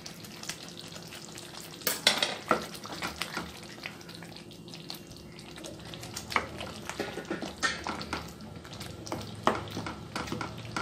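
A spatula stirring thick tomato chutney in a metal kadai, scraping and clicking against the pan at uneven intervals. Under the stirring, the simmering sauce sizzles steadily.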